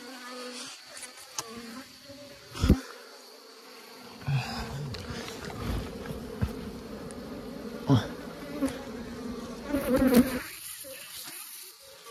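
Swarm of wild honeybees buzzing steadily. A few sharp knocks break through, the loudest about three seconds in, with others later on.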